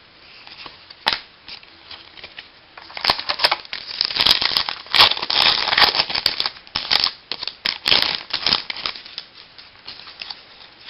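A trading-card pack wrapper being torn open and crinkled: a sharp click about a second in, then dense crackling and crinkling from about three seconds in until about nine seconds.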